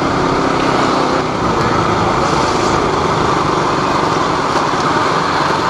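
KTM RC 200 motorcycle under way, its single-cylinder engine running steadily under a constant rush of wind and road noise.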